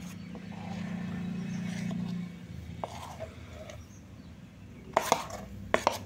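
Thick gram-flour dhokla batter being poured from a steel bowl into a greased steel tray, faintly, with a few sharp metal clicks and knocks of the bowl against the tray about five seconds in.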